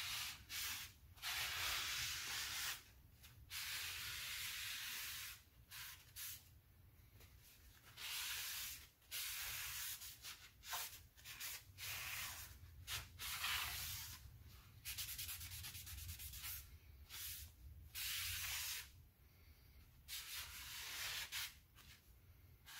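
Cloth rag rubbing across the machined face of a car engine's flywheel, about a dozen scrubbing strokes of a second or two each with short pauses between. The flywheel is being wiped free of oil and fingerprints before the clutch goes on.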